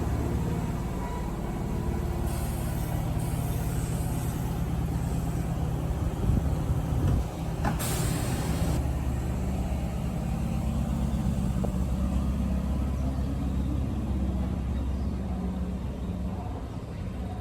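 Kintetsu electric train at the station platform: a steady low rumble of motors and wheels, with short bursts of air hissing from the brakes, the loudest about eight seconds in.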